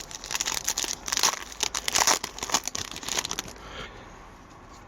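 Upper Deck hockey card pack wrapper crinkling and tearing as it is opened, with cards rustling, in a dense run of crackles that dies down after about three and a half seconds.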